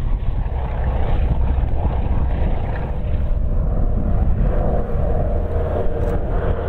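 Lisunov Li-2's two nine-cylinder Shvetsov ASh-62IR radial engines and propellers running hard as the airliner climbs out just after take-off: a steady low drone, with a higher hum coming up from about four and a half seconds in.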